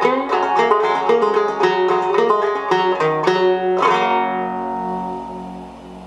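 Ceramic gourd banjo with a fired-clay 14-inch body and an 8.5-inch head, tuned down low for a deep, resonant sound, played in a run of quick plucked notes. About four seconds in a final chord is struck and left to ring out, fading away.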